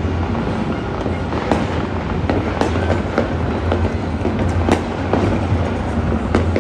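Fireworks and firecrackers going off all across a city, heard from afar: a steady low rumble of massed explosions with about ten sharper bangs standing out at irregular intervals.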